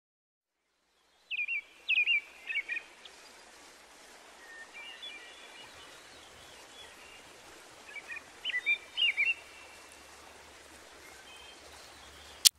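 A small songbird singing two short bursts of quick chirping phrases, one starting about a second in and another around eight seconds, over a steady faint outdoor hiss. A single sharp click just before the end.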